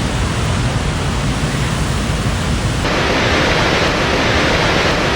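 Loud, steady roar of rushing water, with an abrupt cut about three seconds in to another stretch of torrent noise that is brighter and hissier.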